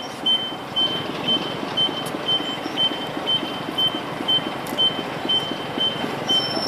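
An electronic alarm beeping, short high beeps evenly about twice a second without stopping, over a steady mechanical rumble.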